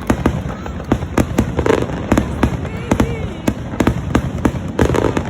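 Fireworks going off in quick succession: a rapid, irregular run of sharp bangs and crackles, about three a second, over a low rumble.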